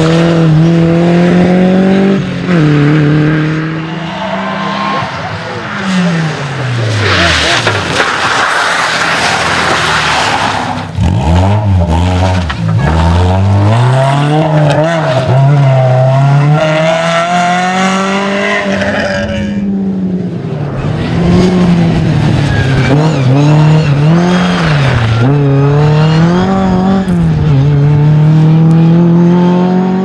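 Rally cars driven hard on a wet stage: engines revving high, the note climbing through the gears and dropping sharply on lift-off and downshifts, again and again. A stretch of loud rushing noise comes about a quarter of the way in.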